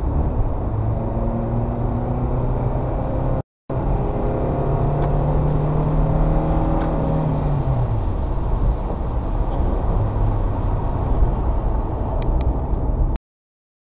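Car engine and road noise heard from inside a moving car. The engine note climbs about a second in, holds steady, then drops a little past halfway as the car eases off. The sound drops out for a moment, then cuts off just before the end.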